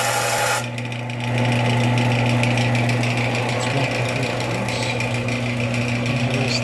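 Electric sander running with a steady hum, sanding black enamel paint off the raised face of a brass panel.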